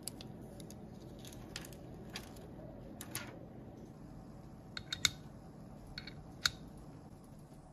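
Small handling sounds of phone repair: light plastic crackles as clear protective film is peeled off the phone's frame, then a few sharp little clicks, the loudest about five and six and a half seconds in, as the repair holder's suction cups are handled.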